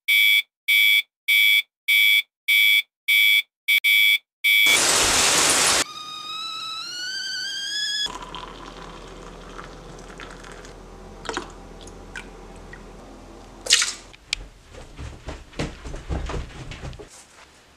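An electronic alarm clock beeping about twice a second, the beeps quickening just before they stop; a second-long rush of noise; then a stovetop kettle whistling, its pitch rising. After that, water pours into a mug, followed by scattered knocks of footsteps on a staircase.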